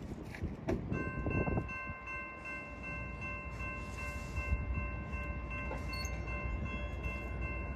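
A train rumbling by, and from about a second in a steady high-pitched chord of several tones held unbroken.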